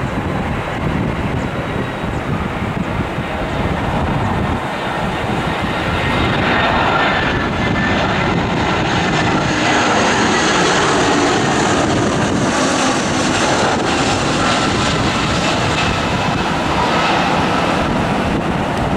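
Airbus A320 jet airliner on landing approach: a steady rushing jet-engine noise with high whining tones. It grows louder about six seconds in as the aircraft comes close, then eases slightly near the end as it moves away.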